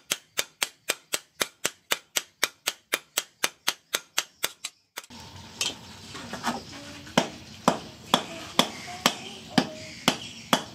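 Hand hammers striking a hot steel sword blade on a steel-pipe anvil. For about four and a half seconds the blows are quick and even, about four a second. They then change abruptly to slower blows, about two a second, over a steady background noise.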